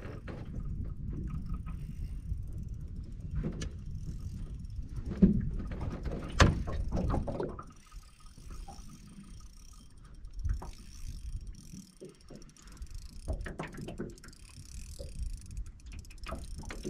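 Scattered knocks and clunks on an aluminium fishing boat, the sharpest three within the first seven seconds, over a low rumble that drops away about eight seconds in.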